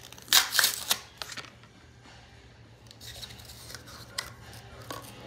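Lip balm blister pack being torn open by hand, the cardboard backing ripping and the clear plastic shell crackling. A loud tearing burst comes about half a second in, followed by softer crinkling and a sharp click about four seconds in.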